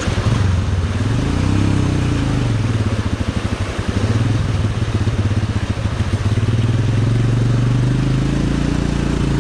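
Royal Enfield Himalayan's single-cylinder engine running as the bike wades through a flooded river crossing, its pitch dipping and rising about a second in, over the rush of water around the bike.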